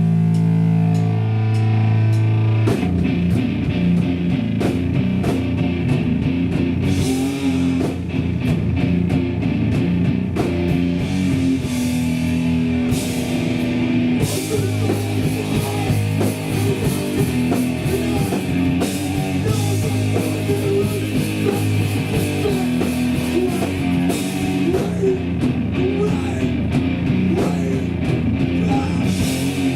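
Hardcore punk band playing live: a held guitar chord rings for a few seconds, then about three seconds in the drums and full band come in together and play on at full volume.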